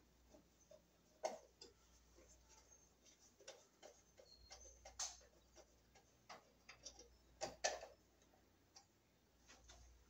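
Faint, irregular clicks and small scrapes of a screwdriver working at a wall light switch and of the loose switch being handled. The sharpest clicks come about a second in, about five seconds in, and as a close pair just before eight seconds.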